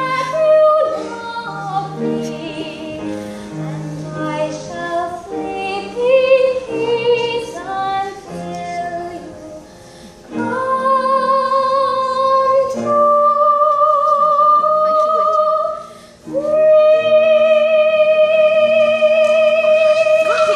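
A young girl singing solo over instrumental accompaniment. The melody moves quickly at first, then settles into long held notes with a slight vibrato, and the last one is sustained for about four seconds at the end.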